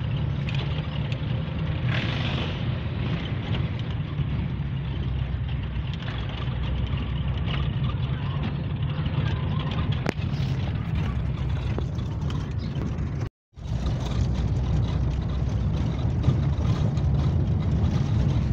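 Car engine and tyres heard from inside the cabin as it drives slowly over a cobblestone street: a steady low rumble. The sound cuts out for a moment about two-thirds of the way through.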